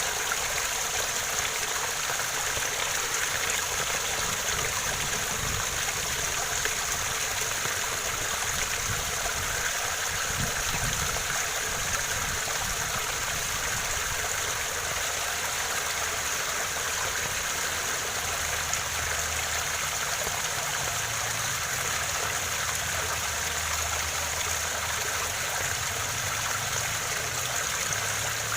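Waterfall running steadily: a continuous, even hiss of falling and splashing water, with a faint low rumble underneath.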